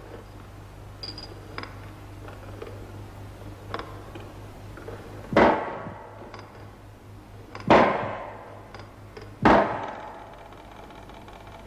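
Three hammer blows on a nail, each a sharp strike with a short ring, about two seconds apart, over a faint steady low hum.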